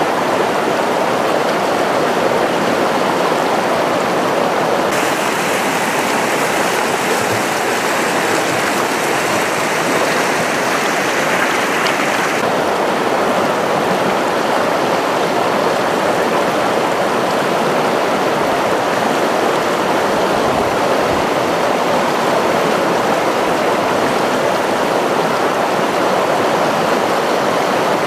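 Chalhuanca River rushing over rapids: a loud, steady wash of water. About five seconds in, its hiss turns sharper and brighter, then falls back abruptly after about seven seconds.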